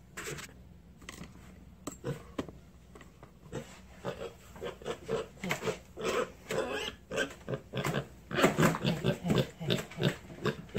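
Mini pig grunting and squealing in many short calls, which come faster and louder over the last few seconds as it is lowered into the sink: a pig uneasy about being bathed.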